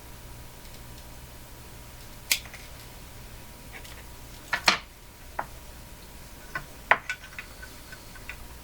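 Small tools and wire being handled on a workbench: a handful of sharp, irregular clicks and light clacks, the loudest a little after two seconds and near five and seven seconds in, over a faint steady low hum.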